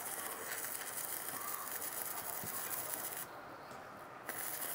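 Stick-welding arc from a Jasic NB200 inverter welder burning on stainless steel: a steady, high hiss. The arc cuts out for about a second near the end, then strikes again; the welder judges the stick arc very good.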